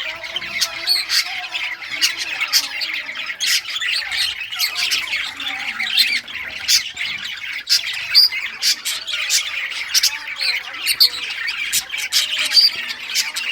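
A flock of budgerigars chattering and chirping continuously, many sharp high chirps and squawks overlapping without a break.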